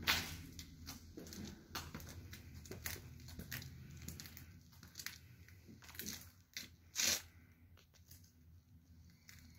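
Footsteps scuffing on a bare, dusty concrete floor, mixed with handling noise: irregular short scuffs and clicks. The loudest come right at the start and about seven seconds in.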